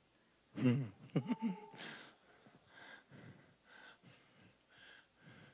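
A man's voice over a handheld microphone making wordless sounds: a short breathy vocal exclamation with a briefly held pitch about a second in, then faint breaths and soft whispering.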